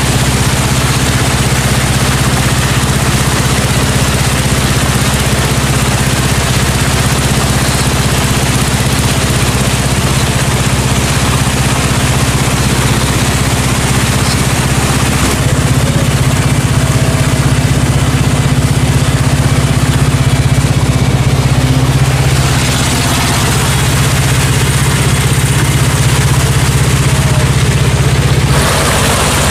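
Wooden river boat's engine running steadily under way, a continuous low drone with a loud rush of water and air over it. The tone and mix shift a little about halfway through and again near the end.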